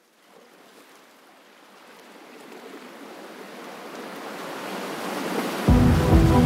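A rushing noise fades in from silence and swells steadily louder for about five seconds. Near the end, background music with steady held notes starts abruptly.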